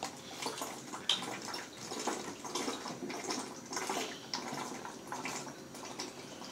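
A person chugging water fast from a plastic water bottle: irregular glugging and gulping swallows.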